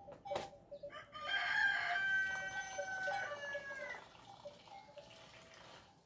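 A rooster crowing once, starting about a second in: one long held call that falls away at its end. A short sharp knock comes just before it.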